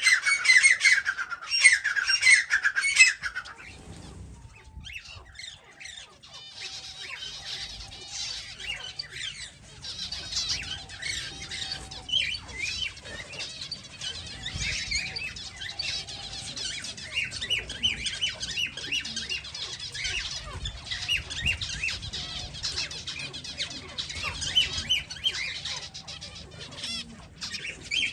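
Flock of aviary finches calling: a loud run of rapid, harsh repeated calls for the first three seconds or so, then a steady chatter of many quieter, short chirps.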